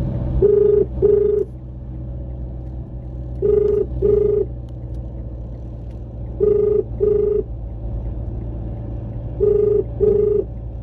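Telephone ringback tone on a phone's speaker: a double ring of two short tones in quick succession, repeating four times about three seconds apart, the sign of an outgoing call ringing at the other end and not yet answered. Under it runs the low, steady rumble of the moving car.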